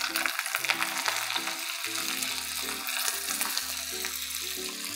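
Shallots sizzling and crackling in hot coconut oil with mustard seeds and dried red chillies, a South Indian tempering just after the onions go in. Soft background music with sustained notes plays underneath.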